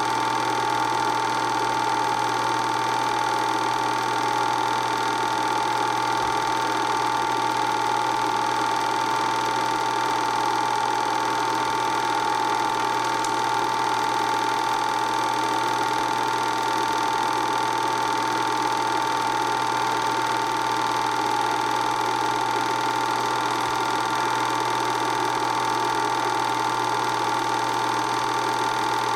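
Film projector running: a steady mechanical whir with a constant high-pitched tone.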